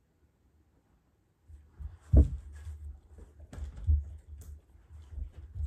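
Irregular dull low thumps with light rustling, the loudest about two seconds in, from a person and a German Shepherd moving and being handled close to the microphone.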